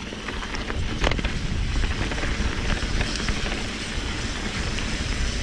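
Mountain bike rolling fast down a dirt trail: a steady rumble of knobby tyres on the ground with rattling and clicking from the bike, and a sharp knock about a second in.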